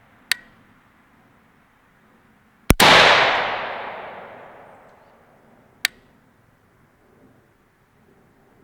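Three single rifle shots from a PSA AK-103 firing 7.62×39 ammunition, spaced a few seconds apart in slow aimed fire. The second shot is the loudest and is followed by a long rolling echo that fades over about two seconds.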